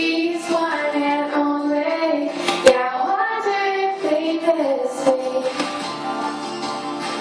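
A girl singing a melody of held notes into a corded handheld microphone, amplified through the school hall's sound system, with one sharp pop about two and a half seconds in.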